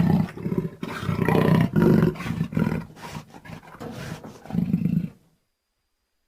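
Jaguar roaring in a run of rough, low, grunting calls, each lasting under half a second, that cut off suddenly about five seconds in.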